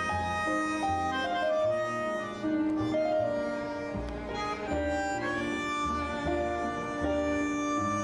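Live music from a small ensemble of violin, double bass and keyboard. Held violin melody notes sound over a steady line of low bass notes.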